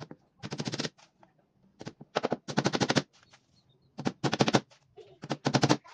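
Cordless impact driver driving screws through a plywood panel into a wooden frame: several short bursts of rapid rattling impacts, each under half a second, with pauses between as the trigger is pulsed.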